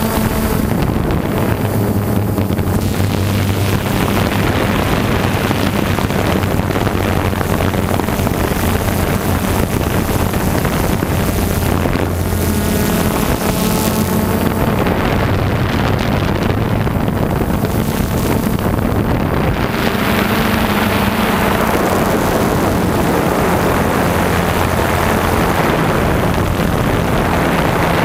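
Small aircraft's motors humming steadily, shifting a little in pitch now and then, under heavy wind noise on the onboard microphone.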